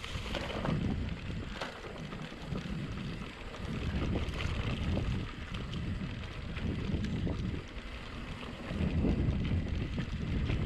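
Wind buffeting the microphone as a mountain bike rolls along a dirt trail, a rumbling noise that swells and fades, with a few short knocks from the bike over bumps.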